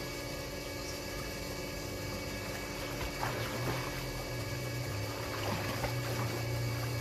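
Water splashing as a swimmer strokes through a pool, mostly from about three seconds in, over a steady machine hum.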